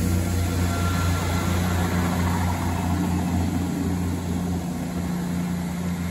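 Class 158 diesel multiple unit moving away along the platform, its diesel engine giving a steady low hum that slowly fades.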